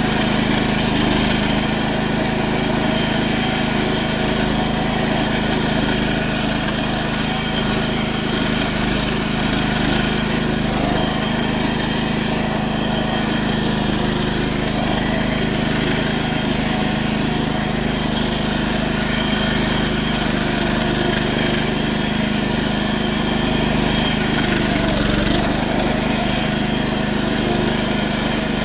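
Minitractor engine running steadily under way, its note holding even throughout.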